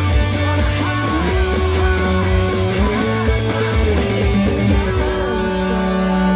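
Instrumental break of a pop-rock song: electric guitars over bass and drums, a held lead line sliding up between notes a couple of times.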